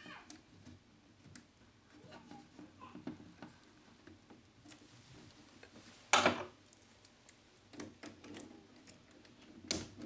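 Small plastic and metal clicks and rattles of a circuit-breaker lock-off device and padlock being fitted to a switched-off MCB. There is a louder sharp click about six seconds in and another near the end.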